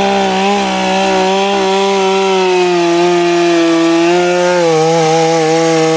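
Two-stroke chainsaw held at high revs while cutting through a thick mango branch, its engine note steady and sagging slightly in pitch midway under load. The chain is dull, which the user calls shot.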